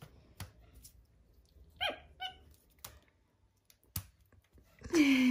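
A capuchin monkey gives two short, high squeaks that fall in pitch about two seconds in, amid light clicks from it chewing and pulling a hair tie. A louder woman's voice comes in near the end.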